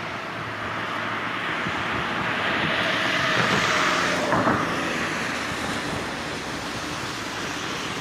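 Steady rushing outdoor noise beside a flowing river. It swells for about two seconds in the middle and fades back, with one faint click at its peak.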